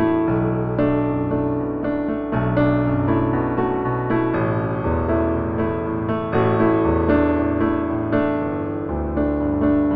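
Background piano music: slow chords over low bass notes that change every second or two.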